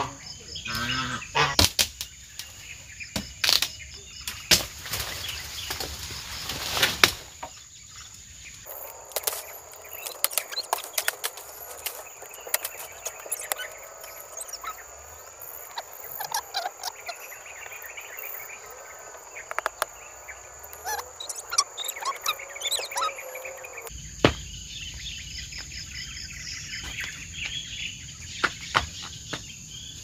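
Outdoor forest ambience: a steady high-pitched insect drone, with birds chirping and scattered knocks and clicks. From about nine seconds in to about twenty-four seconds in, many short rising and falling calls repeat over the drone.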